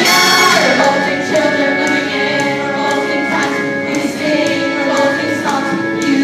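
A group of young voices singing together over a backing music track.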